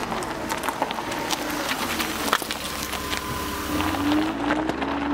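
A vehicle engine running, its pitch rising in short sweeps near the end, with scattered sharp clicks over it.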